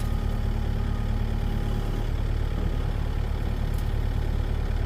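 Engine of the work truck lifting the transformer, idling with a steady, low, even drone.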